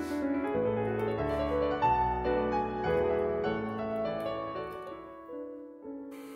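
Solo piano background music, a flowing run of notes.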